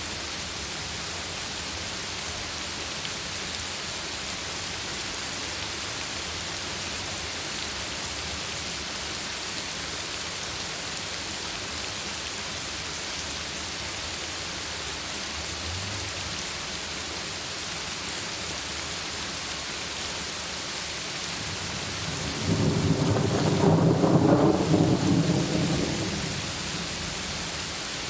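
Heavy rain falling steadily, with a roll of thunder near the end that swells and fades away over about four seconds.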